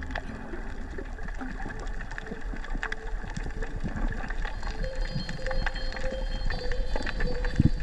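Underwater sound picked up by a camera submerged on a coral reef: a low muffled water rumble with scattered clicks and crackles, and a steady hum that comes in about five seconds in.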